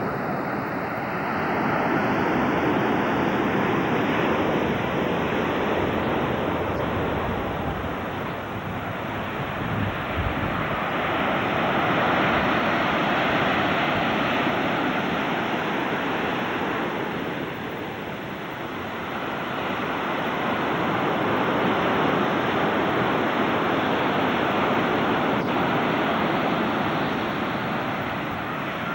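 Ocean surf breaking on the beach: a steady rush of noise that swells and eases about every ten seconds as the waves come in.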